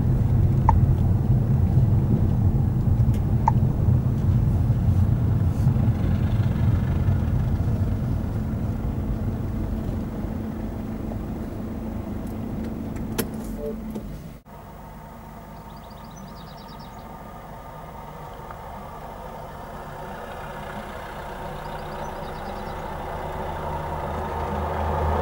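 Car engine and road noise heard from inside the car as it drives along and slows. The noise falls away sharply about halfway through, leaving a quieter steady hum that slowly grows louder.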